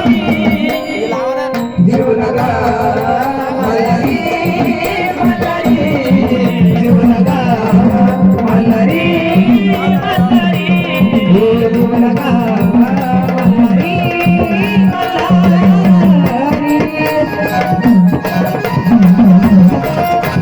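Marathi gondhal folk devotional music: a wavering melody line over steady hand-drum and rattling percussion, played between the sung verses.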